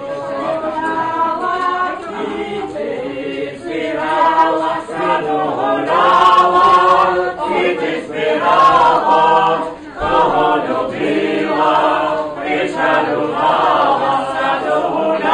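A group of voices singing a song together, unaccompanied, in phrases of held notes with short breaks between them.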